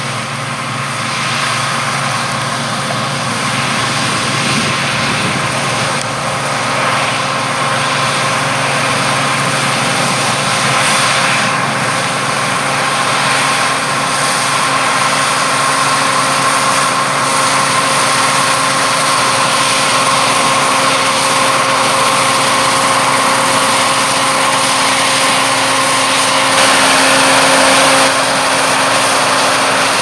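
John Deere C670i HillMaster combine harvester running steadily under load while cutting and threshing wheat, a constant engine and machinery drone with several held tones. It gets a little louder as the machine comes closer.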